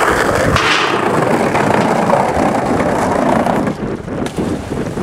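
Wind buffeting the camera microphone: a loud, steady rushing rumble that dips briefly about four seconds in.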